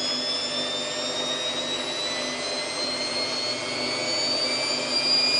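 Samsung WF8804RPA washing machine's drum spinning up in the service-mode spin test, accelerating from about 400 toward 800 rpm. The motor whine rises slowly in pitch over the mechanical running.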